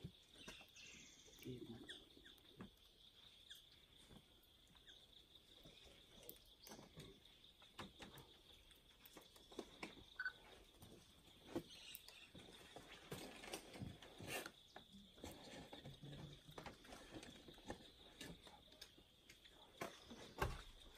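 Near silence: quiet forest ambience with a faint, steady high-pitched insect drone and scattered soft clicks and taps.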